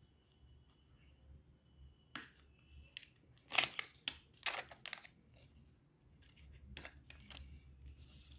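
Crinkling, crackling and short tearing sounds of a plastic sticker sheet being handled and stickers peeled off it. The sounds come as faint, short bursts, a cluster from about two to five seconds in and one more near seven seconds.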